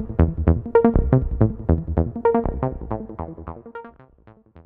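Electronic dance music with quick synth stabs, about four a second, fading out over the last second or two.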